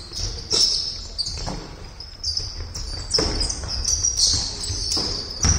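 Basketball shoes squeaking repeatedly on a wooden court floor, with a basketball bouncing a few times at uneven intervals.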